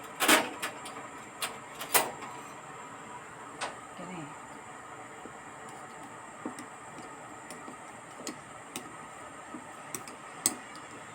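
Scattered light clicks and knocks over a steady background hiss. Two strong knocks come in the first two seconds, then sparser, fainter ones.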